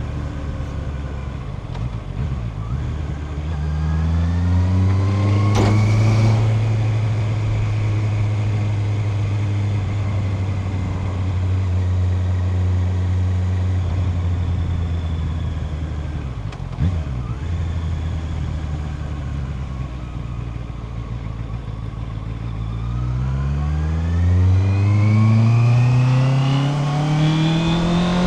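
Honda CB650R inline-four engine accelerating under load, rising in revs through the gears with a quick shift click. It holds a steady cruising note, drops back with a click as it slows, then pulls hard again with revs climbing steeply.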